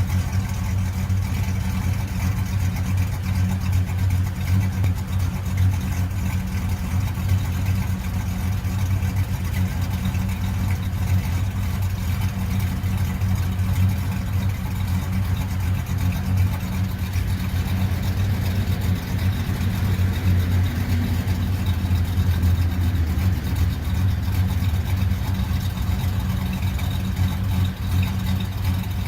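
A 5.3L Vortec V8 fitted with a Texas Speed Stage 2 camshaft idling steadily, heard through the stock muffler.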